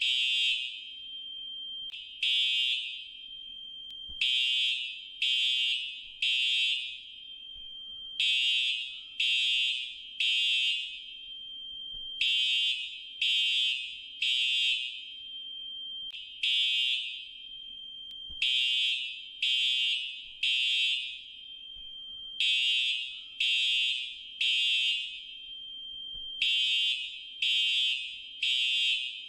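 Fire alarm sounding shrill, high beeps in groups of three, each group followed by a short pause, repeating about every four seconds: the temporal-three evacuation signal.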